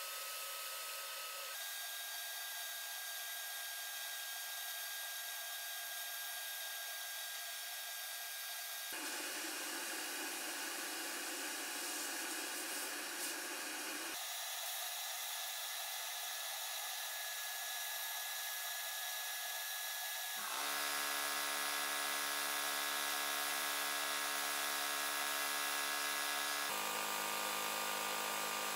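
Abrasive blast cabinet spraying a steady high hiss of air and grit against metal gun parts, the sound jumping in character at several cuts. From about two-thirds of the way in, a steady low machine hum runs under the hiss and it gets a little louder.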